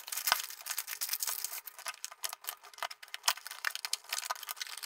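A product box and its packaging being opened and handled by hand: a dense, irregular run of small crackles and clicks.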